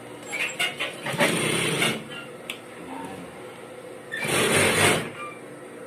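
Industrial sewing machine stitching in short runs: a few quick stabs soon after the start, a run of about a second, then another short run near the end.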